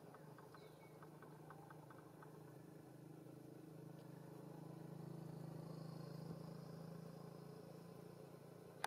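Near silence: faint background with a low steady hum that swells in the middle and fades again, and a quick run of faint ticks in the first second and a half.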